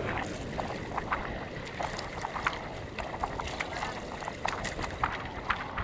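Steady wind and water noise around a small outrigger boat at sea, with scattered light clicks and taps as a fishing hand line is worked off its hand-held spool.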